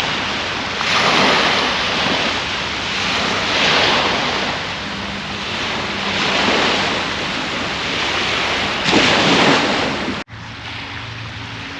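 Small waves washing up the beach, a surge of hiss about every three seconds. About ten seconds in the sound cuts off abruptly and a quieter, steady hiss follows.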